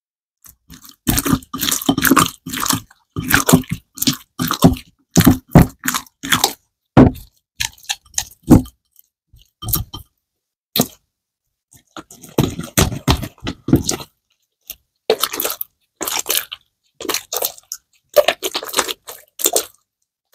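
Clear glitter slime with small beads being squeezed and kneaded by hand, making sticky squishing sounds with clicks and pops in irregular bursts, with a longer pause about halfway through.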